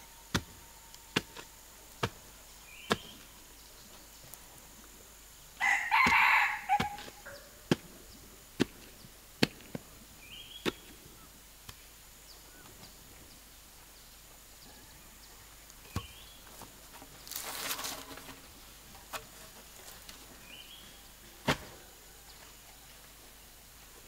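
A rooster crows once about six seconds in. Sharp irregular knocks sound every second or so, and there is a short noisy burst later on.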